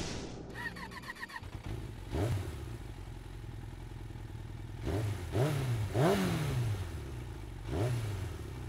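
Motorcycle engine idling and revved in about six short blips, the pitch rising and falling back each time, the longest blip a little past the middle.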